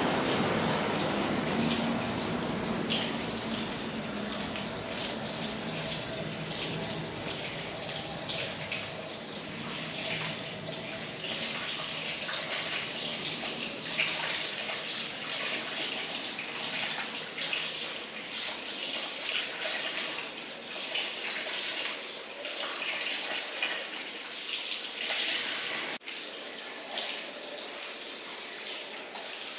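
Handheld shower sprayer running a steady stream of water onto wet hair at a salon shampoo basin, with hands working through the hair.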